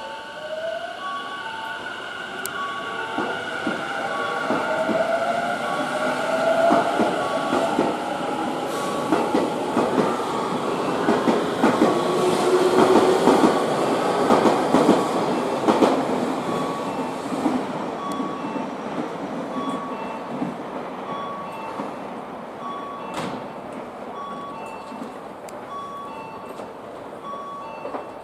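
Electric train passing: a rising motor whine at first, then wheels clattering over rail joints as it goes by, loudest about halfway through before fading. A short electronic tone repeats about once a second throughout.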